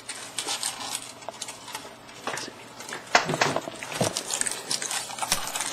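Scattered small knocks, clicks and rattles of objects being handled and moved on a cluttered desk, as a computer mouse is freed from tangled guitar string.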